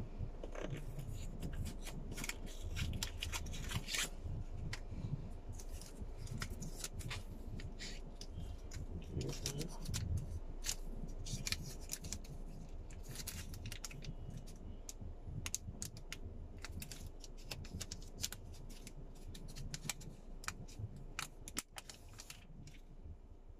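A new smartphone's plastic film and cardboard box being handled: an irregular run of small crinkling clicks and rustles over a low steady rumble.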